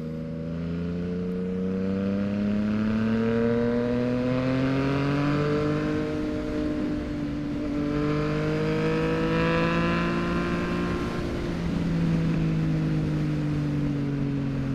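2023 Yamaha MT-09's 889 cc inline three-cylinder engine running through a full Mexx aftermarket exhaust while the bike is ridden: the engine note rises, dips about six seconds in, climbs again and then eases off.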